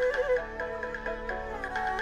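Instrumental background music: a melody of held notes over a steady low drone.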